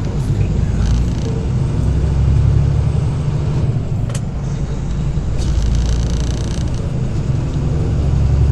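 Semi truck's diesel engine running under way, a steady low drone that swells slightly a couple of times. A short hiss a little past halfway.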